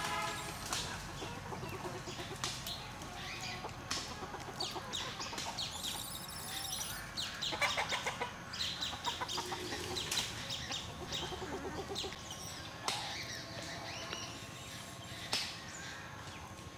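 Short pulsed animal calls, repeated a few times, with scattered clicks and rustles throughout.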